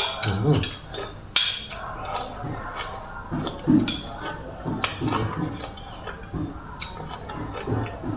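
Metal cutlery clinking against a plate of noodles a few sharp times, with chewing sounds in between.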